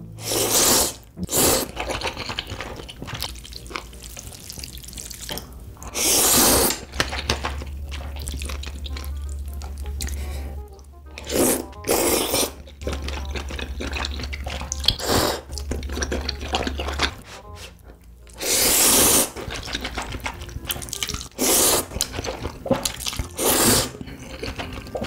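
Loud slurping of spicy instant ramen noodles and broth, about ten slurps of a second or so each, with wet chewing and smacking between them.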